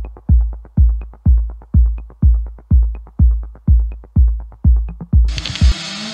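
Electronic dance music with a heavy kick drum about twice a second, which stops abruptly about five seconds in. A steady wash of track noise takes over, with the wavering hum of small motocross bikes running at the start gate.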